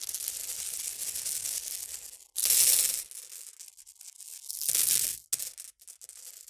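Animated-logo intro sound effect: a hissing, rustling noise with two louder swells, about two and a half and five seconds in, fading near the end.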